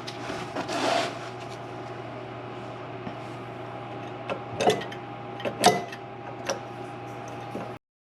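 Scattered clicks and metallic knocks of hand tools and brake parts being handled, over a steady background hum; the sound cuts off suddenly near the end.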